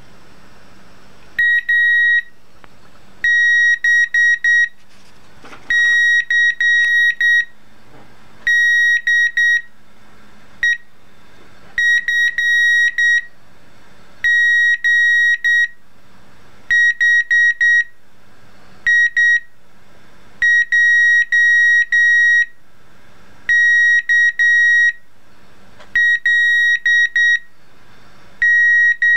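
A breadboard beeper driven by a Raspberry Pi 2 sounding Morse code letters of the alphabet: a single high steady tone switched on and off in short dot beeps and long dash beeps, grouped letter by letter with short gaps between the groups.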